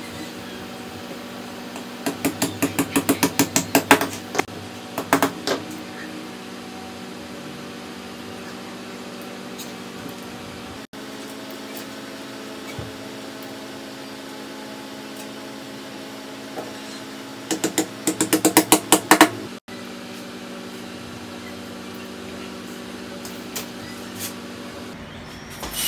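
Two runs of about ten quick sharp metallic clicks, each growing louder, as toothed sheet-metal strips are worked by hand. A few single clicks come between the runs, over a steady hum.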